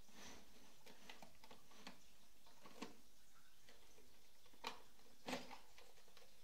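Light plastic clicks and knocks as the rear double-sided printing unit of an Epson Stylus Photo PX720WD is unlatched and pulled off the back of the printer. The clicks are scattered and faint, the two loudest coming a little past halfway through.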